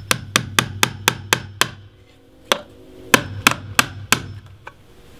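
Claw hammer driving 2.5-inch nails through a metal framing clip into a 2x4. A quick run of about seven taps, roughly four a second, then a short pause and about five more spaced blows.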